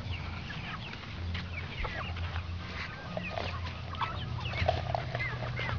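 Chickens clucking, many short calls overlapping on and off throughout.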